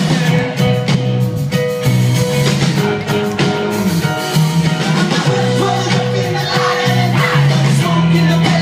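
A live rock band playing loudly, with electric guitars, bass and singing, heard from within the audience.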